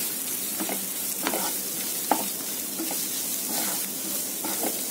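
Onion-tomato masala sizzling in a non-stick frying pan as it is stirred with a spatula, with repeated short scrapes of the spatula against the pan under a steady frying hiss.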